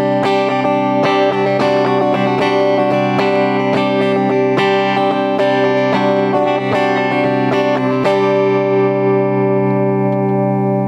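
Tagima TW-61 offset electric guitar playing a run of picked chords for about eight seconds, then a last chord left ringing and slowly fading. The guitar's Varitone tone switch is set to position 5.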